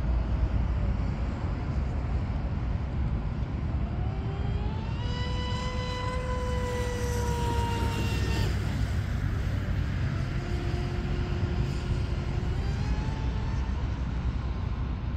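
RC mono hull boat's 3674 2200 kV brushless motor and propeller, on a 4S battery, whining at speed. The pitch rises about four seconds in, holds with a slight fall, and cuts out after about eight and a half seconds. A lower whine rises again around ten seconds in, over a steady low rumble.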